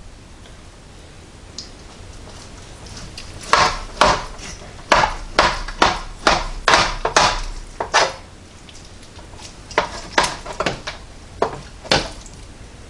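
A knife sawing back and forth through a cooked pork loin roast in a metal roasting pan, in a run of about two strokes a second, followed by a few scattered clicks of knife and fork against the pan.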